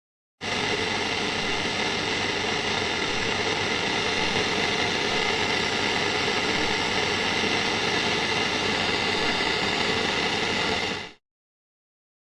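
A steady, dense rushing noise with a faint hum running through it, like a machine or engine running evenly. It starts abruptly about half a second in and cuts off sharply near eleven seconds.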